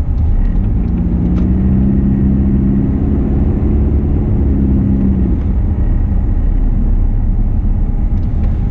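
Car driving, heard from inside the cabin: a steady low road and engine rumble. A droning hum joins it from about a second in and fades out after about five seconds.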